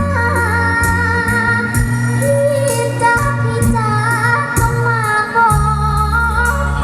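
A young girl singing a song over a backing track with bass, drums and cymbals, holding notes with vibrato.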